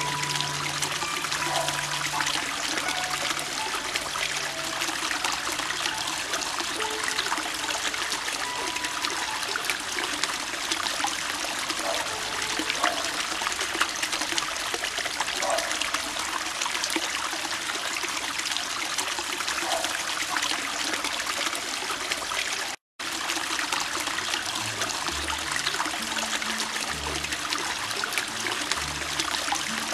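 Garden pond bubbler fountain splashing at the surface, a steady trickling of water. It cuts out for an instant about three quarters of the way through.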